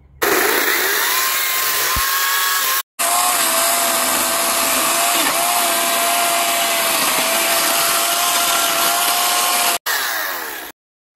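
RYOBI 40V brushless cordless chainsaw with a 14-inch bar cutting through dead branches: a loud electric motor whine over the rattle of the chain, rising in pitch as it spins up, then holding steady. It breaks off abruptly twice for a split second and stops suddenly near the end.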